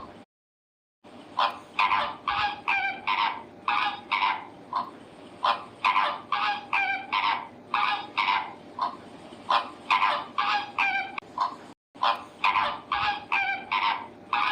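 A flock of large birds giving harsh, goose-like honking calls, several a second and overlapping, starting about a second in, with a brief break near the end.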